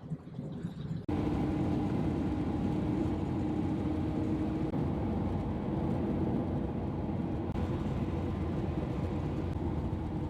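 Car driving at a steady speed: engine running at cruise with tyre and wind noise, coming in abruptly about a second in.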